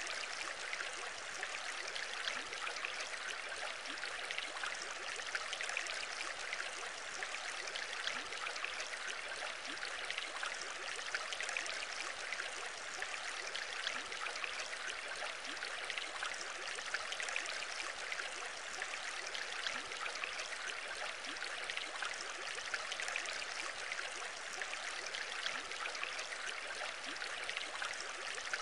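Aquarium water bubbling and trickling steadily, a dense fizz of small air bubbles rising and breaking at the surface.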